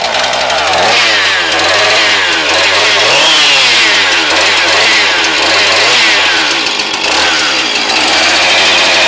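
Husqvarna 445 chainsaw's two-stroke engine running with no chain on the bar, its speed rising and falling about once a second as the throttle is worked. It runs strong.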